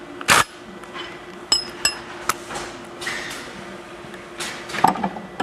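Metal tools and grinder parts knocking and clinking. A sharp knock comes first, then a few lighter clinks that ring briefly, and another cluster of knocks near the end.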